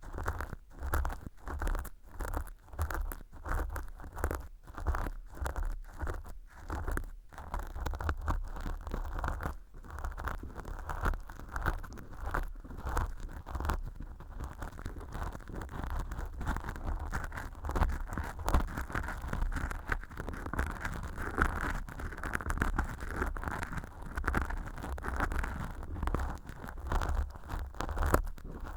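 Earpick scraping inside a fluffy velcro-lined artificial ear canal packed with dry, flaky fake earwax: crackly scratching strokes, about two a second at first, that run together into near-continuous scratching in the second half.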